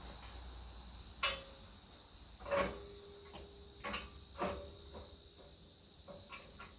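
A handful of separate metal knocks and clinks, each ringing briefly, as steel pins, tools or parts are handled during disassembly. The loudest knocks fall about a second in and near the middle.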